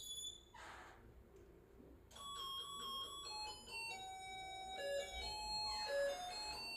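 An electronic doorbell chime plays a tune of short pitched notes, starting about two seconds in, announcing a visitor at the door.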